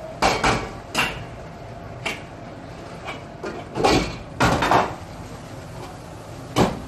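Metal ladle clanging against a wok during stir-frying: irregular sharp clanks, several in quick succession about four seconds in.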